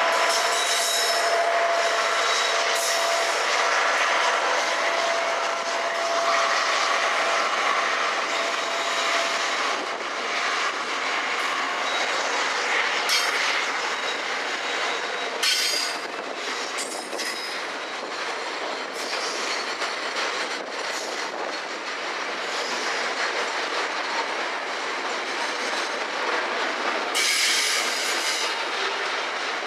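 Container wagons of a freight train rolling past close by: a steady rumble and clatter of wheels on the rails. A thin wheel squeal runs through the first several seconds, and there are a few brief louder clanks and screeches later on.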